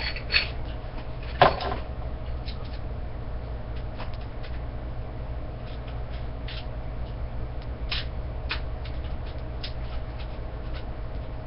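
Handling noise: two sharp knocks about a second apart near the start, then scattered light clicks, as the plastic and metal parts of a TV antenna are worked by hand, over a steady low hum.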